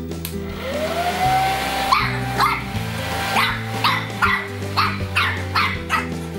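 Small long-haired puppy yapping in a rapid run of short, sharp barks, starting about two seconds in, over background music.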